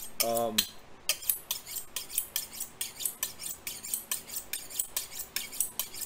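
Kitchen knife blade drawn along a honing rod in quick alternating strokes, a metallic scraping about four times a second.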